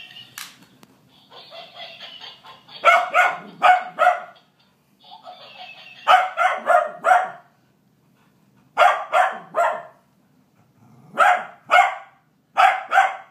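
A Cavalier King Charles spaniel barking in quick runs of two to five barks, five runs in all, at a plush laughing-monkey toy. Before the first two runs there is a fainter, higher, rattling chatter.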